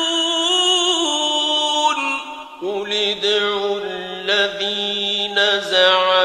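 A male reciter chanting Quran recitation with long held, ornamented notes. After a short breath about two and a half seconds in, he continues on a lower held pitch.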